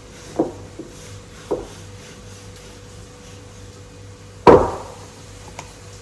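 Two knocks about a second apart, then one much louder thump about four and a half seconds in, followed by a faint click.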